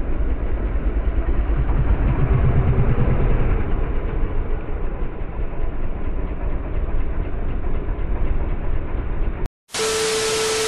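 Suzuki Gixxer's single-cylinder engine running at low speed with a steady low throb. Near the end it cuts out abruptly, replaced by about a second of loud TV-static hiss with a steady beep tone, a glitch transition effect.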